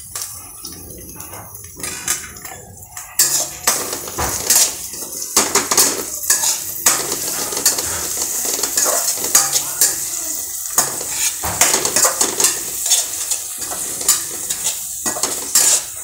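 A spatula stirring and scraping onions and curry leaves frying in oil in a steel kadai, clinking against the metal over a steady sizzle. The sizzle and the scraping grow louder and busier about three seconds in.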